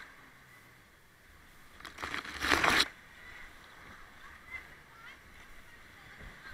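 Kayak running a weir chute: white water rushing steadily, with a loud burst of splashing about two seconds in that lasts under a second.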